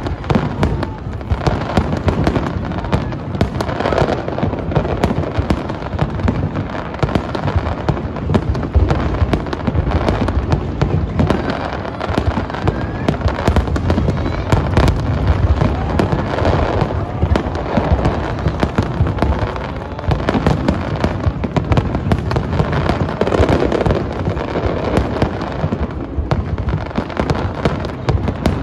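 Aerial fireworks display: many shells bursting in quick succession with booms and crackle, a near-continuous run of explosions with no pauses.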